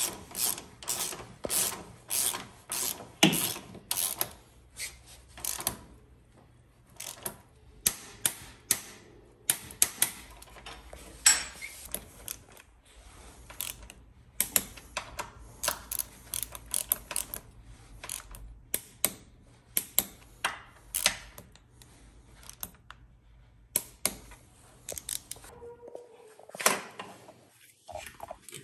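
Ratchet wrench clicking in quick runs of strokes with short pauses, tightening the front wheel axle and brake caliper bolts on a motorcycle.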